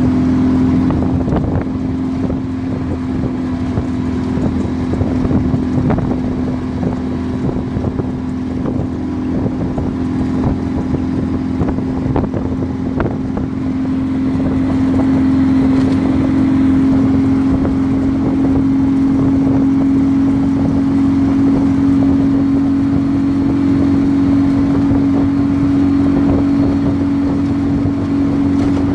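Turbocharged buggy engine running at a steady speed, with one strong, even pitch. From about halfway it runs steadier and slightly louder.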